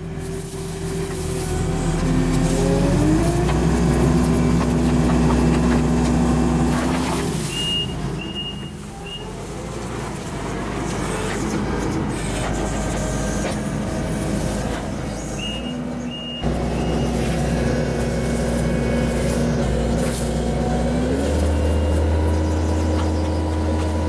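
Skid steer engine running under load while it works a tree puller attachment, its pitch stepping up a few times as the hydraulics are worked. Two sets of three short, high beeps sound, about a third and about two-thirds of the way in.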